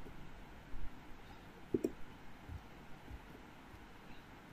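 A few faint clicks over quiet room tone, from a pointing device working a digital drawing program.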